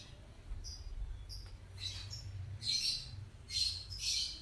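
Sugar glider giving short, high, raspy chirping calls in quick bursts at a hand reaching toward it. There are about six bursts, and the three loudest come in the last two seconds.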